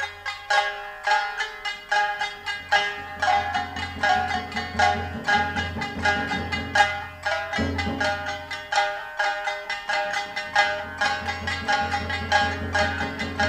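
Nagauta music: shamisen plucked in quick, even runs of notes.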